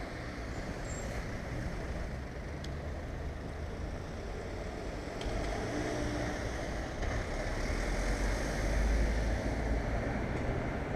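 Road traffic passing, a low rumble that swells from about halfway through and is loudest near the end.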